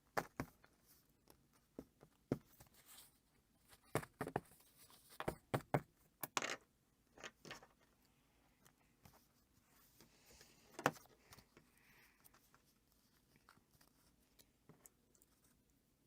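Loose book pages being handled and shifted into line: paper rustling with scattered light taps and clicks, busiest from about four to seven seconds in, with one sharper click near eleven seconds.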